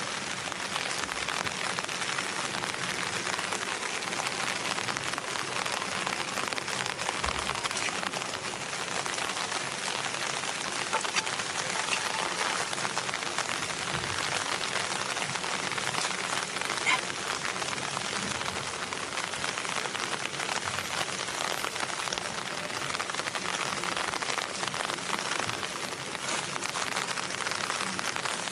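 Steady rain falling, a dense even hiss with a few faint clicks in the middle.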